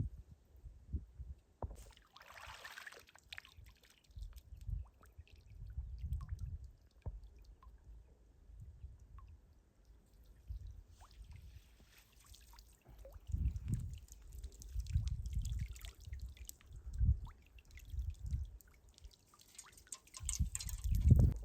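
Wind buffeting the microphone in irregular gusts, with water splashing and dripping: a short splash about two seconds in, then scattered drips and trickling through the second half.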